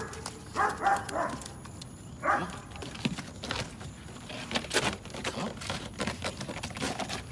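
Belgian Malinois puppies giving two short yips, then many quick clicks and scrapes as their paws and claws scrabble on an artificial-turf-covered wooden agility ramp.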